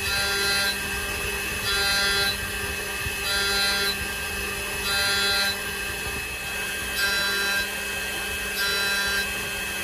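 Ringmaker jewelry CNC milling machine engraving a wedding band. Its spindle runs with a steady whine. Roughly every one and a half seconds, a louder, higher cutting sound lasts about half a second as the cutter cuts fine diagonal lines into the ring's surface.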